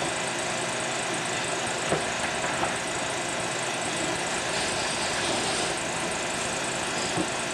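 Steady mechanical running noise, like an engine running, with a few faint knocks about two seconds in and again near the end.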